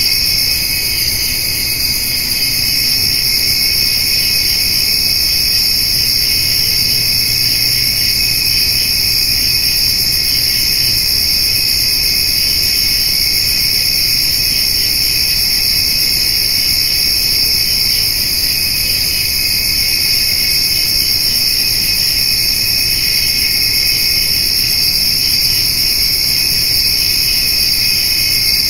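Steady, unbroken evening chorus of crickets and grasshoppers trilling, in two steady pitch bands, one high and one lower, with no pauses.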